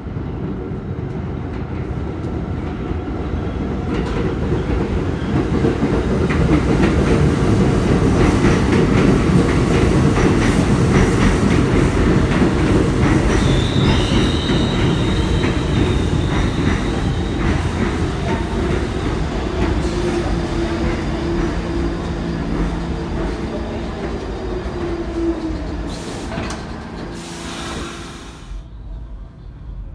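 New York City Subway train running in the station: heavy wheel rumble and rapid clatter over the rail joints, a brief high wheel squeal about halfway through, and a steady motor whine in the second half. The noise dies down just before the end.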